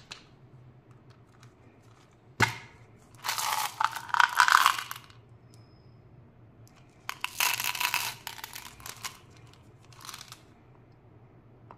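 The lid of a plastic Skittles tub pops off with a sharp click about two seconds in. Hard-shelled Skittles candies then rattle and clatter twice, each time for about two seconds, as they are poured out. A softer click comes near the end as the lid goes back on.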